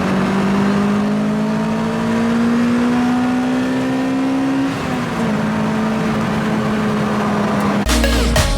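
2006 Lotus Exige's 2ZZ four-cylinder engine pulling through a gear, its pitch rising slowly for about five seconds, dropping at a gear change, then holding steady. Music cuts in near the end.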